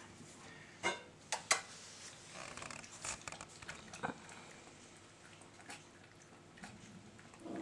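Mostly quiet room with a few sharp clicks, a quick cluster about a second in and another single click near four seconds, and a faint rustle around the middle.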